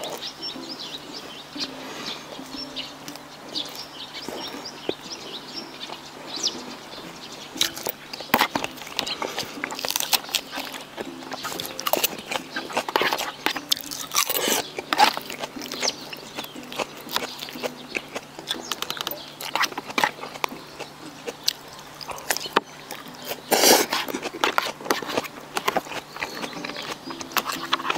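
Close-miked eating sounds: a person chewing and biting food, with irregular wet clicks and snaps.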